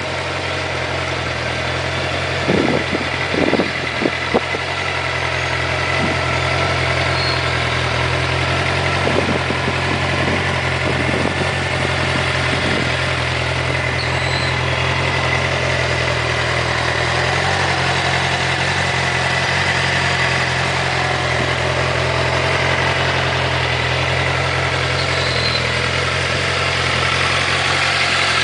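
2008 Suzuki GSX-R 600's inline-four engine idling steadily, with a few short knocks in the first few seconds.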